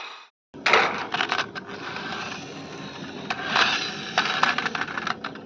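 Plastic toy parts clicking and clattering rapidly over a steady mechanical whir. The sound drops out briefly right at the start, and near the end it fades lower before stopping.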